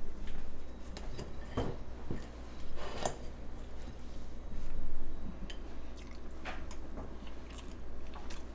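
A metal fork clinking and scraping on a ceramic plate while cutting a bite of pie, a handful of separate sharp clicks over a few seconds.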